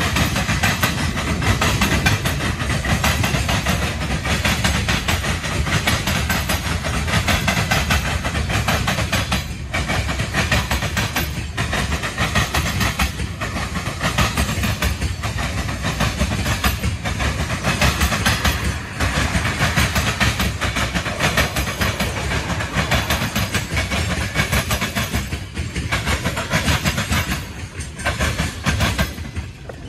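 Freight cars of a CSX manifest train rolling past: a steady rumble and rattle of steel wheels on the rails, continuing unbroken and easing slightly near the end.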